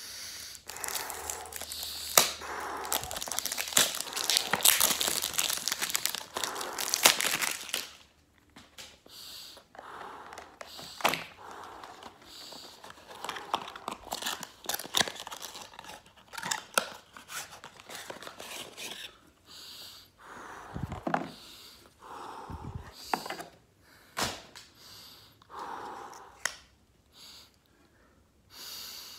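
Cellophane wrapper crinkling and tearing as it is pulled off a perfume box, dense for about the first eight seconds. After that, scattered rustles and clicks of the cardboard box being opened and the glass bottle handled.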